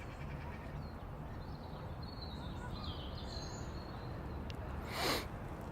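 Outdoor background noise with a steady low rumble and a few faint, high bird chirps, broken about five seconds in by one short, loud rushing noise.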